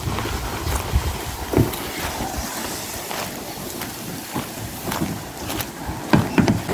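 Plastic kayak hull dragged over dry leaves and dirt: a steady scraping rustle, with a few louder crunches of leaves and twigs underfoot.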